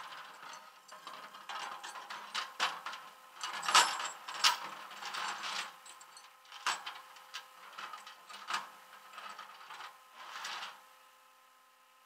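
Steel tow chain and hooks rattling and clanking on a flatbed tow truck's deck as they are handled and dragged by hand, a string of irregular clinks, loudest about four seconds in, that stops near the end.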